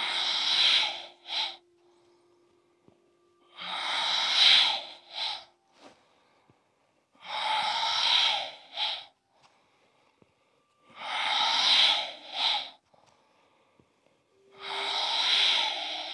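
A woman breathing out hard five times, about every four seconds, in time with a yoga flow. Each breath is a loud rush of about a second, ending in a short extra puff.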